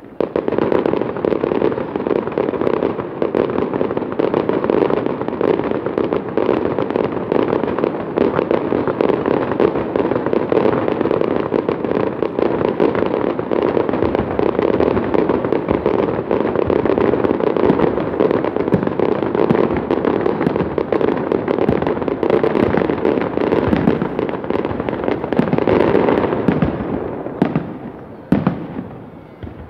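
Fireworks display: a dense, continuous barrage of aerial shell bursts and crackle that starts abruptly, then thins out near the end to a few separate bangs.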